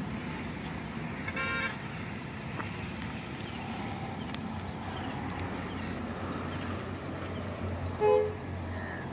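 Truck's diesel engine running low and steady as the truck moves slowly, with two short horn toots: one about a second and a half in and a louder one near the end.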